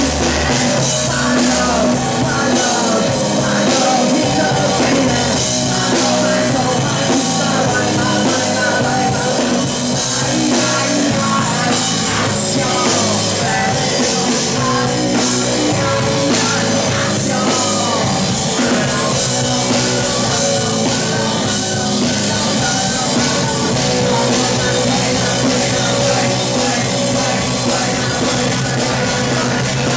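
Live rock band playing loud and without a break: electric guitar and drums, with a singer singing into a handheld microphone.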